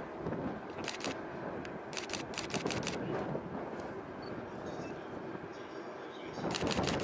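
Camera shutters firing in rapid bursts: a short run about a second in, another around two to three seconds in, then a fast continuous burst starting near the end that is the loudest part. Underneath is a steady background rumble.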